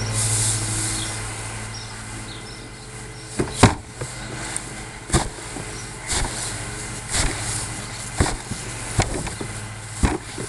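Loose hay being pressed down by hand into a wheelie-bin hand baler. Sharp knocks start about three and a half seconds in and come roughly once a second as the hay is forced down, with the rustle of hay between them. A steady low hum sits under the first few seconds.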